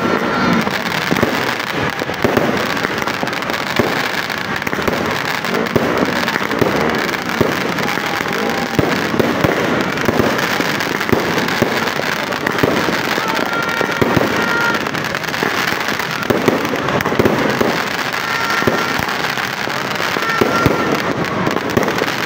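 Aerial fireworks display: a continuous, rapid barrage of bangs and crackling from bursting shells, with no let-up.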